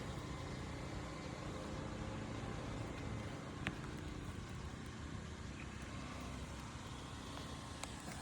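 A steady engine-like hum with low, even tones that fade away by about halfway through, over a constant background noise. A single sharp click comes about a third of the way in.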